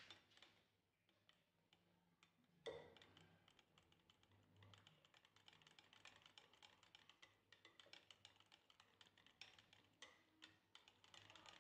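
Faint, rapid clicking of a wire whisk against a glass bowl as batter is beaten, starting a few seconds in.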